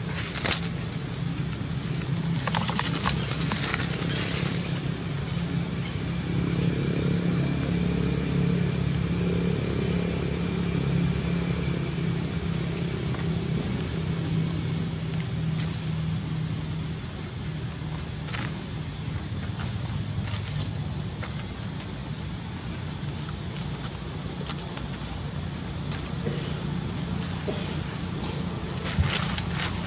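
Steady high-pitched insect chorus, with a low steady hum beneath and a few faint clicks.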